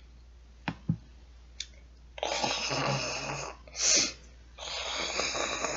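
Snoring, as of a child who has dozed off: a few faint clicks, then two long snores with a short puff of breath between them.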